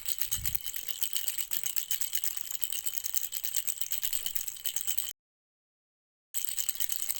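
Baby rattle shaken quickly and continuously, a dense stream of rapid, bright clicks. It cuts off to dead silence a little after five seconds in, then starts again about a second later.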